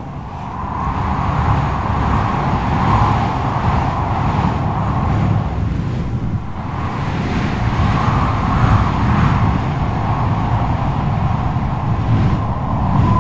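Strong wind blowing in gusts, with a heavy low rumble that swells and eases every few seconds and a faint whistle underneath, growing stronger near the end.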